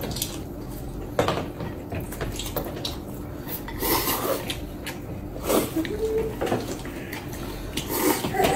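Chopsticks clicking and scraping against ceramic bowls and plates, with noodles being slurped and eaten.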